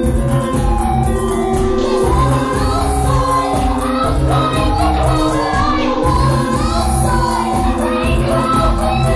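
Live music played loud over a concert sound system: a steady beat with heavy bass and held chords, with a singing voice coming in about two seconds in.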